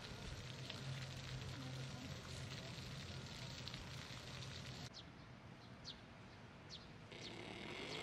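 Outdoor ambience: a steady soft background noise with a faint low hum in the first few seconds. In the second half, a few short, high, falling chirps from small birds.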